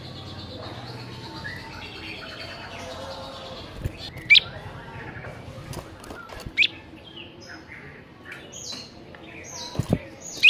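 Caged bar-winged prinia (ciblek) chirping and twittering over a busy background of varied bird calls, with two loud, sharp rising chirps about four and six and a half seconds in. A few low thumps come in between, the last near the end.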